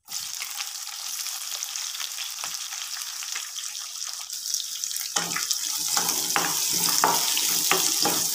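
Sliced onions sizzling in hot oil with whole spices in a non-stick pan, the sizzle starting suddenly as they go in. About five seconds in a spatula starts stirring them, adding scraping knocks over a louder sizzle.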